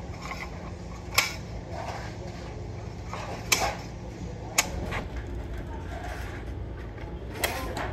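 Hand shears cutting stainless steel sheet, with four sharp metallic clicks at irregular spacing as the blades close and the cut pieces of sheet knock together, over a steady low hum.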